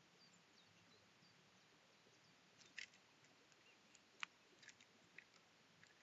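Eurasian jay feeding at a wooden squirrel feeder: a handful of faint, sharp taps and clicks of its beak pecking against the wood and food, scattered over near silence, the loudest tap a little past the middle.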